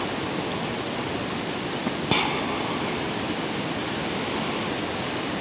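Steady, even outdoor hiss with no clear single source, and a short rustle about two seconds in.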